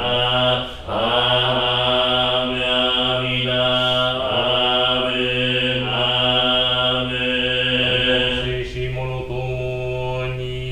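Jōdo Shinshū shōmyō chanting: a low male voice draws out long, slowly bending held notes of the service chant, pausing for a breath about a second in.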